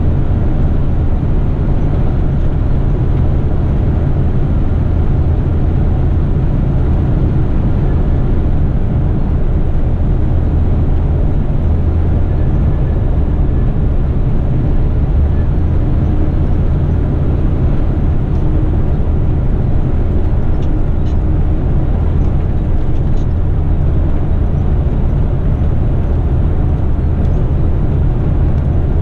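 Truck's diesel engine and road noise while driving along, a steady low drone that holds even throughout.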